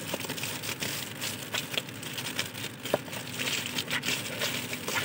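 Shiny metallic foil gift wrap crinkling and crackling in irregular bursts as hands handle and pull at a wrapped parcel.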